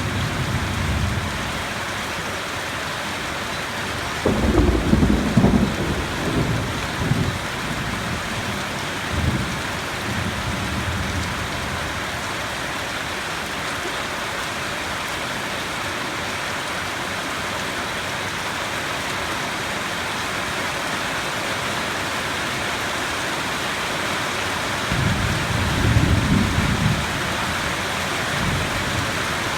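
Steady heavy rain with thunder. A rumble starts suddenly about four seconds in and rolls on in several pulses for a few seconds. A second rumble of thunder comes near the end.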